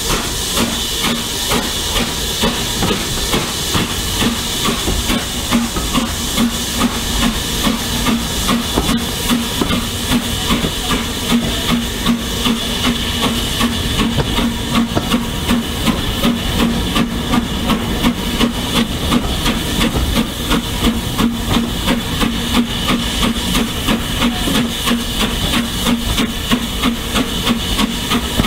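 A steam locomotive working a train, heard from an open carriage window behind it: a steady rhythm of exhaust chuffs over a constant hiss of steam.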